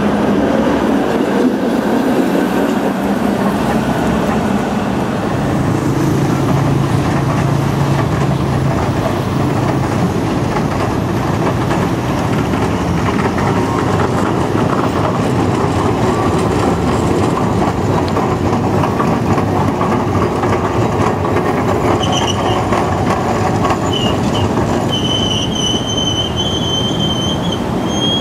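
Vintage electric streetcar running along street rails, wheels and running gear giving a steady rolling noise. For the last several seconds the wheels squeal on the rails in a high, steady tone.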